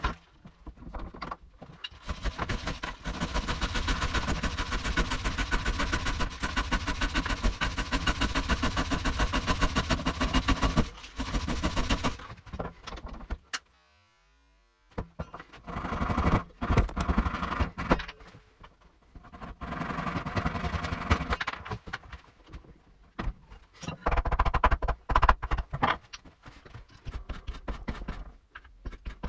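Hand woodworking noises sped up to four times speed: a long run of rapid rhythmic scraping strokes lasting about ten seconds, a short near-silent pause, then several shorter bursts of scraping and knocking on wood.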